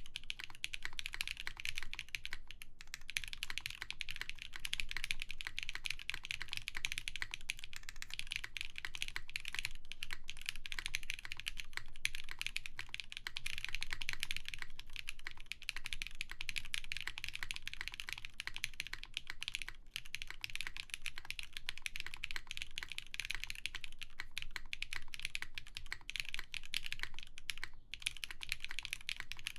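Continuous fast typing on a custom mechanical keyboard: lubed Zakus linear switches with 63.5 g springs on a full polycarbonate plate, under GMK Sandstorm keycaps, giving a steady stream of dense keystroke clacks with brief pauses now and then.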